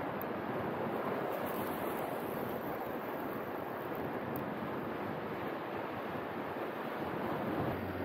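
Steady wash of small waves at the shoreline, mixed with wind on the microphone.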